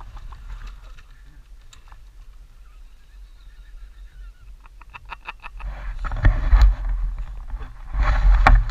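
Dirt bike engines: a low steady rumble, then from about five seconds in a bike engine pulsing and revving in short loud bursts, growing louder as the rider comes down the slope closer.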